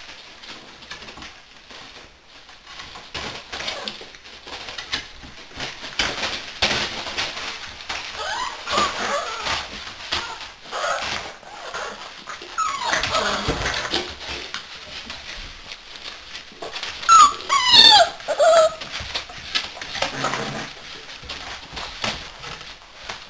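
American Staffordshire terrier puppies play-fighting, whining and yelping in short gliding cries over a scuffle of paws and bodies. The loudest is a burst of high, falling yelps about three-quarters of the way through.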